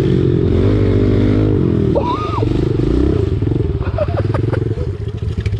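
Small off-road vehicle engine being ridden hard, its pitch rising and falling as the throttle is worked, with some clattering.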